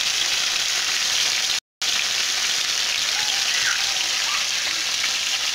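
Tilapia pieces frying in hot oil in a pan, a steady sizzle and crackle that cuts out for a moment about a second and a half in.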